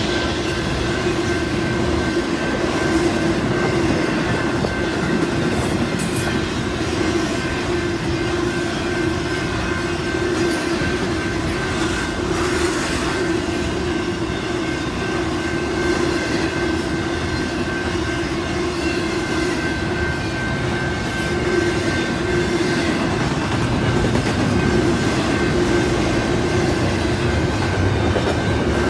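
Double-stack intermodal freight cars rolling past: steady rumble of steel wheels on rail, with a steady ringing tone underneath and occasional clicks over the rail joints.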